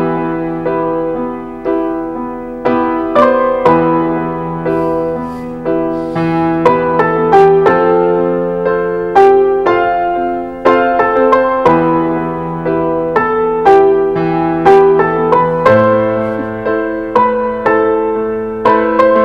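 Background music: a slow, gentle piano melody, each note struck and then fading over held bass notes.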